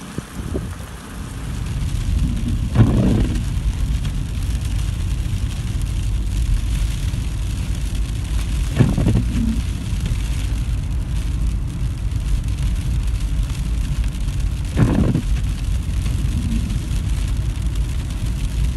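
A car driving on a wet road, heard from inside the cabin: a steady low engine and tyre rumble, with three short louder sounds about six seconds apart.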